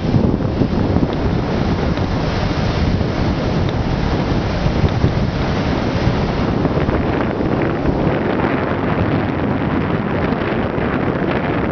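Wind buffeting a moving microphone: a loud, steady rush, heaviest in the low rumble.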